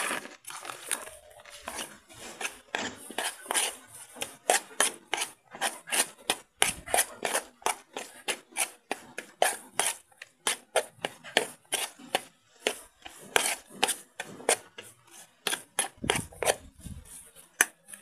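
Metal spoon stirring a rice-and-chick-feed mash in a metal pot, clinking and scraping against the pot's sides and bottom in a quick, uneven run of strokes, about two or three a second.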